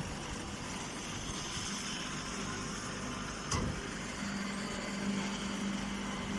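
An engine-driven machine running steadily, with a single sharp click about three and a half seconds in and a steady low hum joining about four seconds in.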